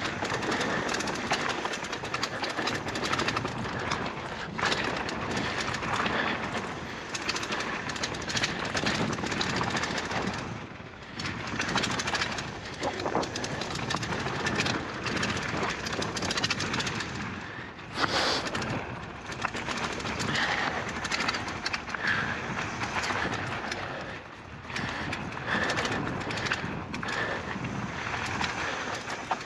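Polygon Siskiu N9 mountain bike riding down a dirt flow trail: tyres rumbling over the dirt, with a constant clatter of chain and frame knocks over the bumps and wind rushing past the microphone.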